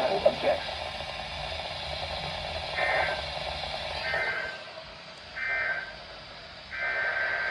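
NOAA Weather Radio SAME alert data bursts: four short bursts of a buzzy two-tone digital warble, roughly a second and a half apart, the first about three seconds in. These bursts are the coded header and end-of-message signals that frame a broadcast warning.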